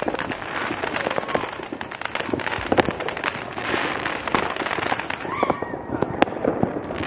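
Many consumer fireworks going off across a city at once: dense, irregular pops, bangs and crackles overlapping without a break.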